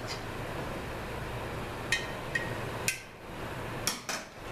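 Sharp metallic clinks and taps, about six in a few seconds, as tools and metal parts are handled on an aluminium automatic-transmission case, over a steady low shop hum.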